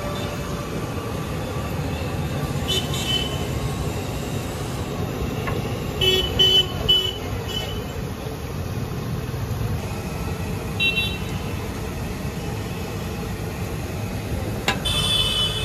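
Street traffic: a steady rumble with short vehicle-horn toots, three in quick succession about six seconds in and single ones before and after.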